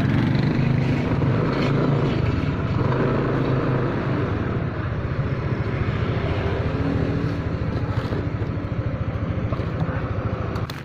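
Motorcycle engine running as the bike rides along a street, over a steady rush of road and wind noise.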